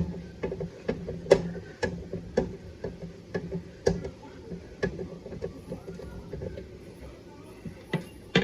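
Sharp, irregular clicks and taps, one or two a second, thinning out after about five seconds: a screwdriver working the case screws of a 1956 Westinghouse tube radio as it is opened up.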